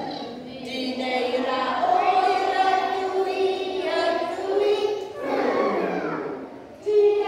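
A group of nursery-age children singing a Christmas song together in Welsh, in phrases with short breaks between them.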